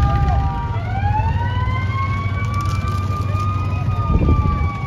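Emergency vehicle sirens wailing, two or more overlapping, with a slow slide down and then a long rise and fall in pitch, over a steady low rumble.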